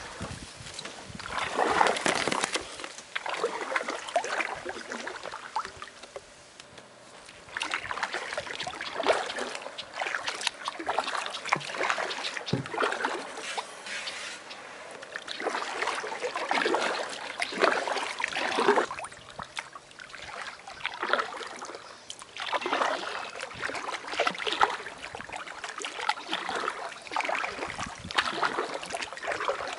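Kayak paddle strokes: the blades dip and pull through calm water, splashing and dripping in uneven bursts every few seconds.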